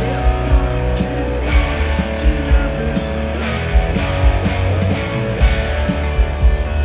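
Rock band playing live: electric guitars and bass over a steady drum beat.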